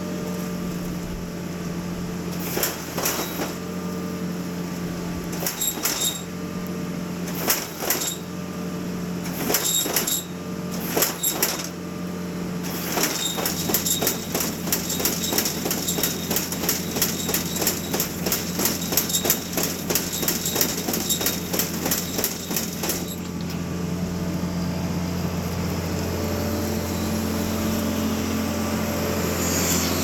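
Engines of a cotton picker and a tractor running steadily as the picker's basket dumps cotton into a boll buggy, with scattered sharp clicks and knocks from the machinery. In the middle these turn into an even run of ticks, about three a second.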